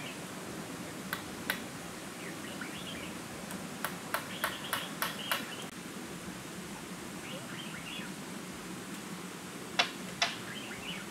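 Sharp knocks of wood on wood from building a timber house frame: two about a second in, a quick run of about six between four and five seconds in, and two louder ones near the end. Short chirping calls come between them over a steady forest background.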